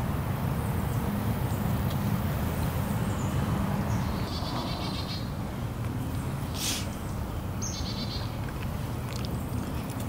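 Small shallow stream flowing steadily over leaves and stones. Short high-pitched trills cut in twice, about halfway through and again near the eight-second mark, with a brief high hiss between them.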